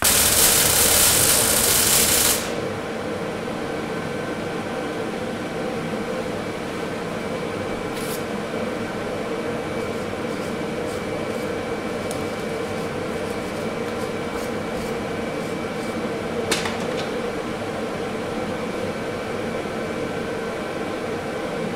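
Welding arc crackling loudly for about two seconds as sprockets and flanges are welded to a steel shaft. It stops, and an electric angle grinder runs steadily, with a couple of sharp clicks partway through.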